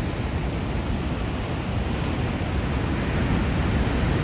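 Steady rush of ocean surf breaking along the coast, mixed with wind buffeting the microphone.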